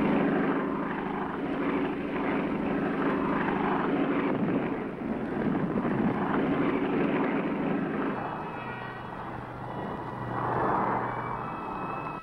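Piston-engined propeller aircraft droning steadily in flight. The drone thins about eight seconds in and swells again near the end.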